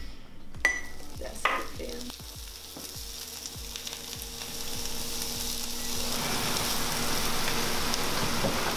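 Food frying in a pan on a stovetop, a steady sizzle that grows louder over the second half, with a couple of sharp utensil clinks against the pan near the start.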